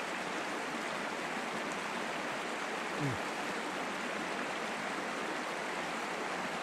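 Steady rushing of flowing stream water. A brief low falling hum, like a short voiced sound, comes about three seconds in.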